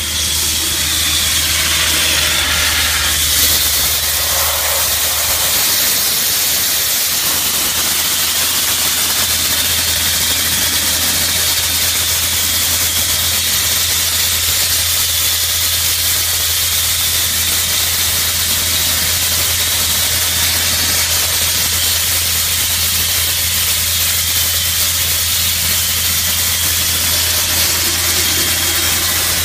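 A dustless (wet abrasive) blasting nozzle hisses steadily as it sprays media against a van's body panels. A steady low engine hum runs underneath.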